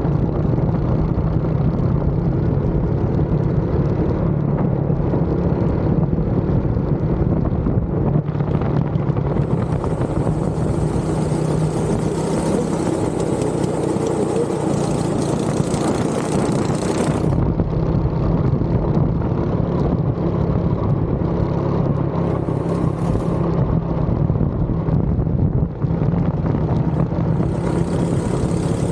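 Go-kart engine running steadily under throttle, heard from the driver's seat. A high hiss joins in for several seconds in the middle.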